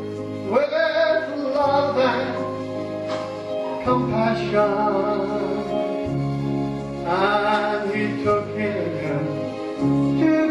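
A gospel song sung slowly over instrumental accompaniment, with long held notes.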